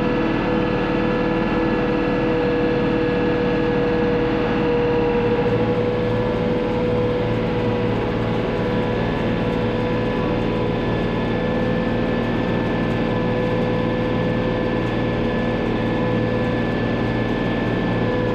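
Tractor engine running steadily, driving a Vermeer 504M round baler while it bales hay, with several steady whining tones over the engine noise.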